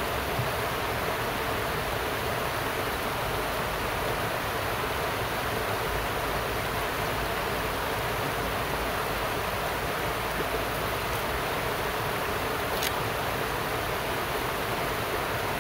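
Steady rush of the Progo river running fast over rocks, swollen with early floodwater after days of rain. A faint tick sounds about 13 seconds in.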